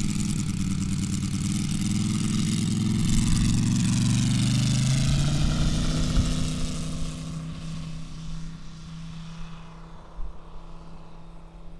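Large RC Yak-11's Moki 250 radial engine opening up for the takeoff run, its pitch rising over the first few seconds, then running steadily and fading as the model climbs away.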